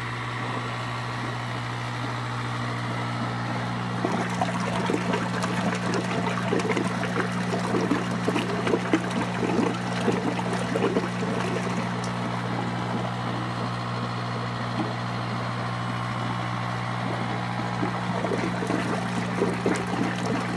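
Electric air pump of a vortex compost tea brewer humming steadily as it drives air up through PVC tubes into a barrel. Water gurgles and splashes as the brew rotates and aerates, the splashing growing busier from about four seconds in.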